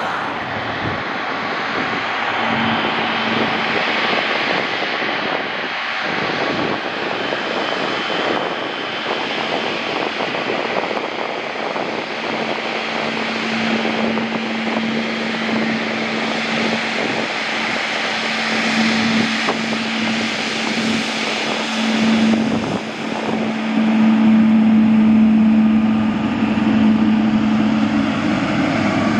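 Jet airliner engine noise, a dense steady rush of a passing aircraft, with a steady low hum that grows stronger in the second half and gets louder in the last few seconds.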